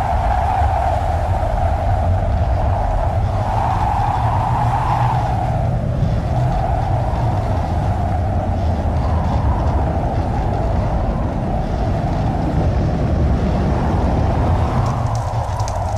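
Tornado winds roaring: a loud, steady low rumble with a wavering howl above it. Near the end a patter of clicks joins in.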